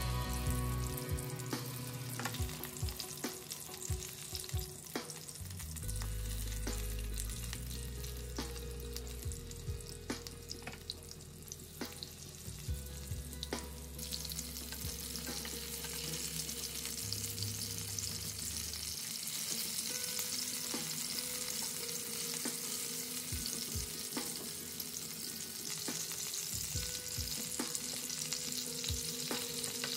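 Marinated chicken drumsticks sizzling as they shallow-fry in oil in a pan, with a few light clicks. About halfway through, the sizzle becomes louder and brighter.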